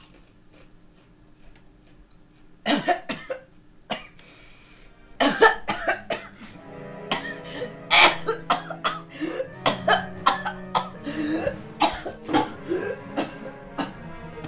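A man choking on a potato chip: harsh coughs and gagging gasps, a first short fit about three seconds in, then coming thick and fast from about five seconds in, over sustained music that enters soon after.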